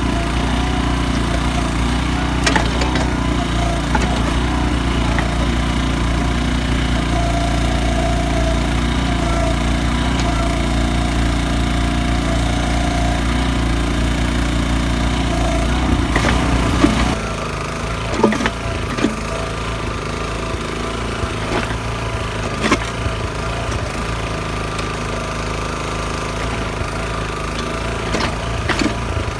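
Small engine of an ATV-towed backhoe running steadily, with scattered knocks and scrapes from the digging. A little over halfway through, the engine note drops and gets quieter.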